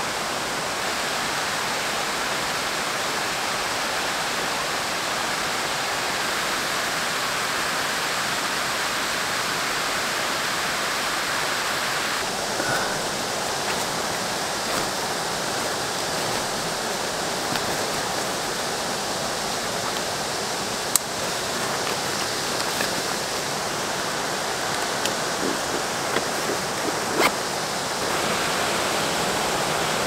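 Steady rush of water from a rocky rainforest creek and waterfall, with a few sharp clicks about two-thirds of the way in and near the end.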